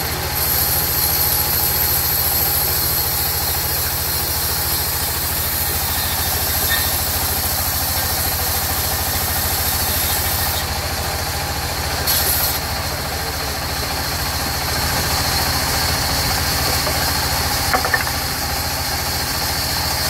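Band sawmill running steadily, its vertical band saw blade cutting lengthwise through a mahogany log. A low machine hum sits under the high hiss of the cut, with a couple of sharp clicks near the end.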